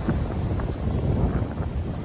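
Wind buffeting the microphone while riding along the road: a steady low rumbling noise with no clear tone.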